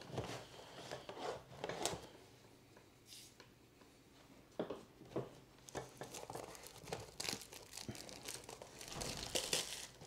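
Clear plastic shrink-wrap on a trading-card blaster box crinkling and tearing as it is cut and pulled open, in scattered short crackles and rustles that grow busier over the last few seconds.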